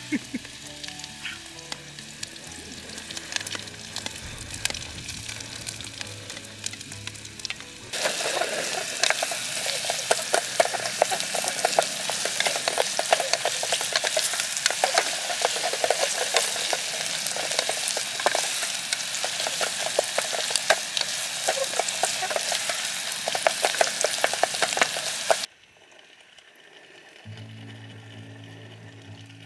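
Chopped red onions frying in hot oil in a small camping pot while a wooden spatula stirs them: a dense crackling sizzle that starts suddenly about eight seconds in and cuts off abruptly near the end. Soft background music plays at the start and after the sizzle stops.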